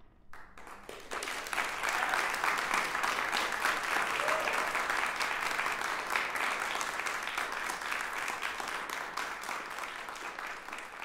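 Audience applauding: the clapping breaks out from silence, fills in within about a second and a half, holds steady, then eases off a little near the end.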